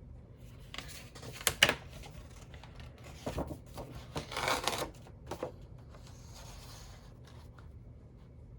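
Paper sheets being handled and leafed through: short dry rustles and slides, the sharpest about a second and a half in, more around three and a half and four and a half seconds, then only faint handling.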